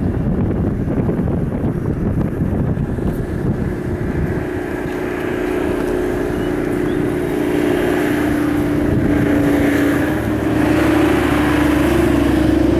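Wind buffeting the microphone, then from about four seconds in a steady motor engine drone that grows louder, its pitch dipping slightly near the end.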